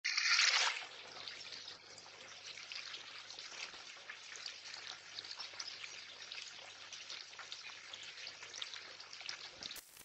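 Water trickling steadily into a small garden pond, with a short loud hiss at the very start.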